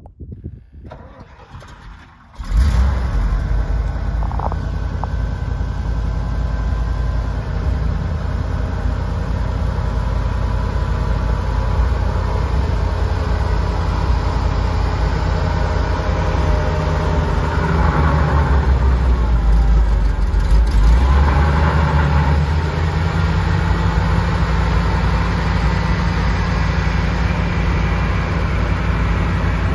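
International 549 V8 gasoline engine of a 1968 International Fleetstar A truck starting about two seconds in, then running at a steady idle, briefly revved twice in the second half.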